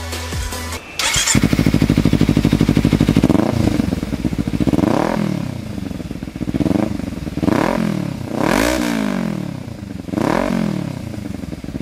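Kawasaki Ninja's parallel-twin engine started on the electric starter about a second in, running with a fast even beat, then revved in several quick throttle blips, each rising and falling in pitch.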